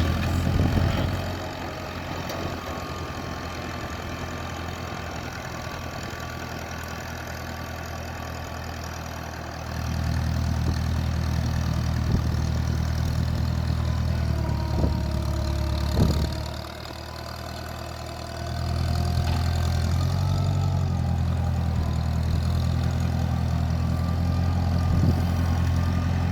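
A motor engine running steadily with a low, even hum. It gets louder about ten seconds in, drops back briefly around sixteen seconds, then comes up again.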